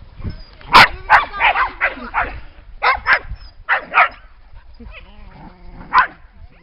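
Dog barking: a rapid string of sharp barks over the first four seconds, then a pause and one more bark near the end.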